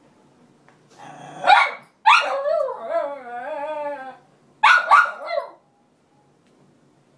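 Cairn terrier barking, then giving a long wavering whining cry of about two seconds, then barking a couple more times: a protest at being kept out of her bed.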